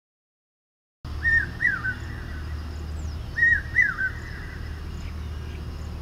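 Common hawk-cuckoo (brainfever bird) calling: starting about a second in, two short three-note phrases about two seconds apart, over a steady low hum of the recording. Its call is taken by farmers as the sign that the monsoon rains are coming.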